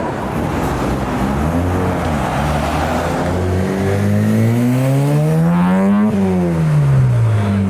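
Rotary-engined car revving up. Its engine note rises steadily in pitch for a couple of seconds, peaks sharply about six seconds in, then falls away, over a steady rush of road noise.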